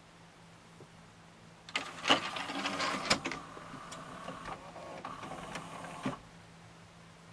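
Sony MDP-533D laserdisc player's motorised disc tray drawing in: a small motor and gear train whirring, with a string of clicks and rattles for about four seconds, ending in a sharp click as the tray seats.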